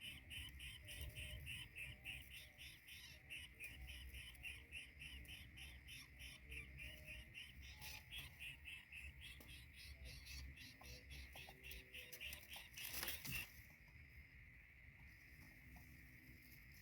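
A rapid, even train of short high-pitched chirps, several a second, cut off about thirteen seconds in by a brief loud rustle, after which a steady high hum remains.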